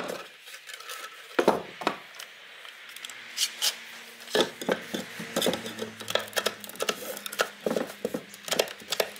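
One-handed bar clamp and thin wooden frame strips handled on a tabletop: irregular clicks, knocks and rattles as the clamp is set across the frame and tightened.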